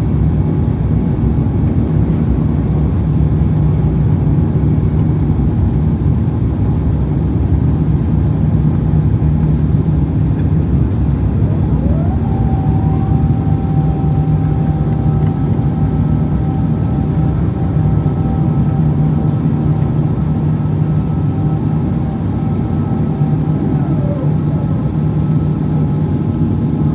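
Steady cabin roar of an Airbus A350's Rolls-Royce Trent XWB jet engines during the climb after takeoff, with a low hum underneath. About halfway through, a thin whine rises, holds level for around twelve seconds, then falls away near the end.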